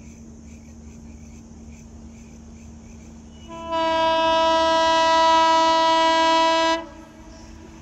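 Locomotive air horn sounding one long, steady blast of about three seconds, starting about three and a half seconds in and cutting off suddenly.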